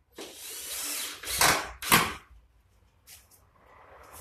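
Cordless drill-driver driving a screw into an MDF cabinet panel. The motor runs steadily for about a second, then comes in two short louder bursts half a second apart and stops about two seconds in.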